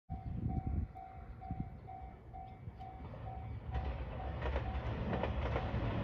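A Japanese level-crossing warning bell rings in even electronic dings about twice a second. From about four seconds in, the rumble of an approaching JR Shikoku 2700 series diesel express train builds beneath it.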